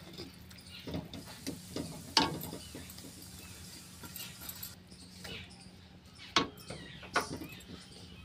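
A wooden spatula scraping and knocking against a steel kadhai as ground peanuts are stirred into sugar syrup, with a few sharp knocks, the loudest about two seconds in and twice more near the end.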